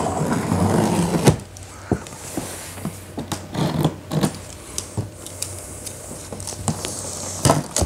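Cardboard carton of a carpet cleaner being opened by hand. Scraping and handling noise fills the first second or so and ends in a sharp click, then quieter scattered clicks and knocks follow as the flaps and packing are handled.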